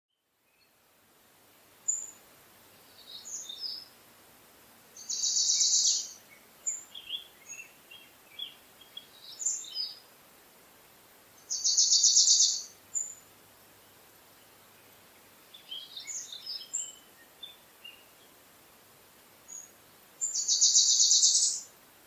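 Songbirds singing: a high, fast trill lasting over a second comes three times, about seven seconds apart, with scattered short chirps and notes between.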